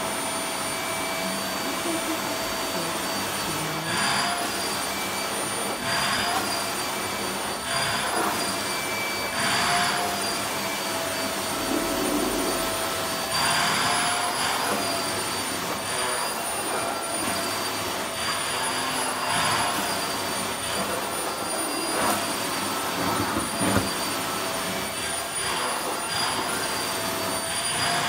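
Handheld vacuum cleaner running with a steady high motor whine while its nozzle is held against a puppy's thick fur; the suction hiss swells every couple of seconds as the nozzle is moved.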